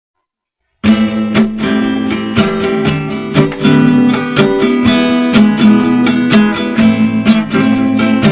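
Song intro played on strummed acoustic guitar, starting about a second in, with no singing yet.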